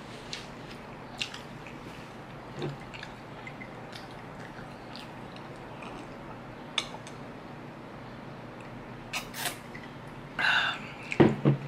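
Person drinking soda from a glass mug, with small clicks of glass and swallowing. The mug is set down on the wooden table with a knock near the end, over a steady background hum.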